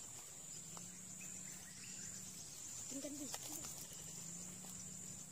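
Steady, high-pitched drone of insects calling at dusk. A brief voice-like sound comes about three seconds in.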